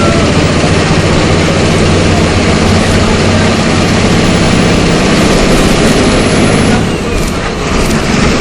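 MWM 6.12 TCAE six-cylinder turbodiesel of a Volkswagen Volksbus 17.210 EOD bus running steadily, dipping briefly about seven seconds in and then picking up again.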